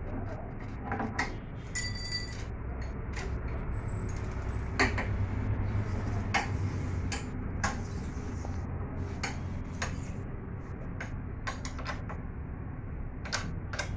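Irregular metallic clinks and ticks of a steel spanner turning and knocking against the bolts on a portable generator's frame, with one brief ringing clink about two seconds in. A steady low hum runs underneath.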